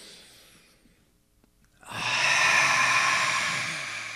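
A man breathes in with an audible rush of air that tails off. About two seconds in he lets out a long, loud, breathy open 'ah' with his voice low beneath it, fading slowly: the fiery, intense 'ah' exhale of the Qigong fire (heart) healing sound.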